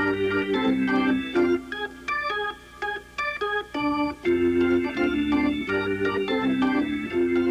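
Instrumental background music: rhythmic chords over a repeating low part. About two seconds in the low chords drop out for a sparser run of higher notes, and the full chords come back about four seconds in.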